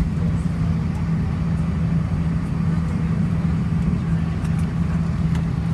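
Airbus A319-114 cabin noise while taxiing: the steady low hum and rumble of its CFM56 engines at idle, heard inside the cabin.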